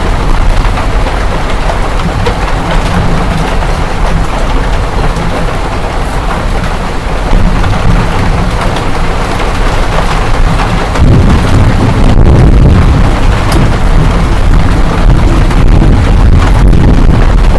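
Hailstorm: hail and rain pelting down in a dense, steady clatter with a deep rumble underneath, growing heavier about eleven seconds in.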